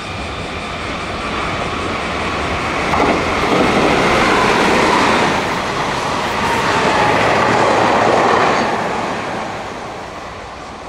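Meitetsu Inuyama Line electric train running past on the rails. It grows louder about two seconds in, stays loud through the middle, and fades away near the end.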